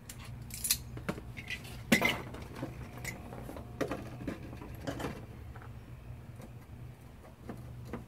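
Metal clinking and knocking as the steel mounting plate of a seat-belt buckle stalk is bent and fitted back in place, with the sharpest clank about two seconds in.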